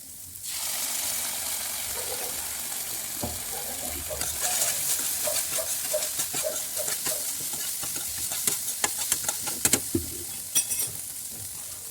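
Onions, peas and spices frying in oil in a pan: the sizzle jumps up sharply about half a second in as sauce is poured into the hot pan. From about four seconds in, a spoon scrapes and clicks against the pan as the mixture is stirred.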